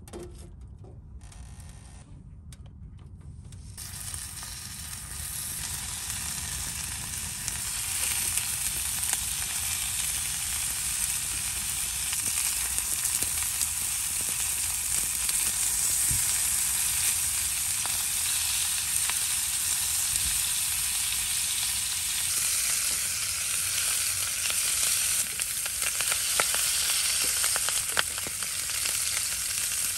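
Bone-in lamb chops sizzling in a hot carbon-steel frying pan on a pellet stove. The sizzle begins a few seconds in as the meat goes into the pan and grows louder, then holds steady with scattered crackles of spitting fat.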